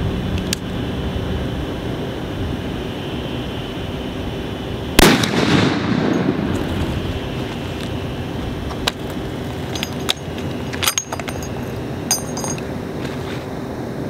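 A single shot from a Barrett M99 .50 BMG rifle about five seconds in: one sharp report with an echo that dies away over about a second and a half. Several sharp metallic clicks follow from about nine seconds in, some ringing briefly, as the single-shot bolt is worked.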